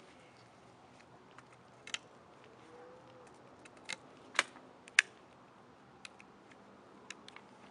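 Faint background hiss with a scattered run of about nine sharp clicks and ticks, the loudest two coming close together about four and a half and five seconds in.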